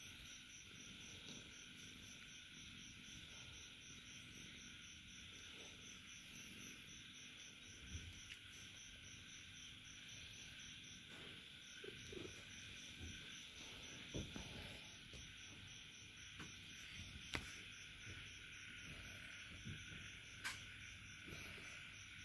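Near silence, with crickets chirping steadily in the background as a high, evenly pulsed trill, and a couple of faint clicks later on.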